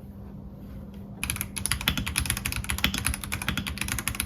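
Fast typing on an RK Royal Kludge H81 mechanical keyboard, a dense clatter of keystrokes that starts about a second in.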